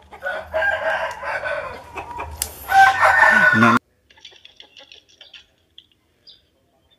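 Roosters crowing, with hen-like clucking mixed in. The sound stops abruptly a little under four seconds in, and after that only faint clicks remain.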